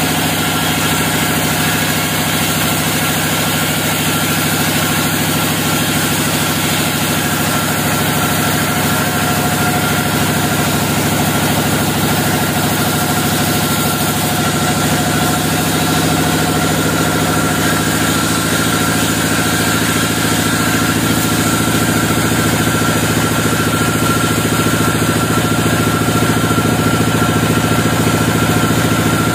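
Log band sawmill running steadily, a loud, even machine hum that holds the same pitch throughout without rising or falling.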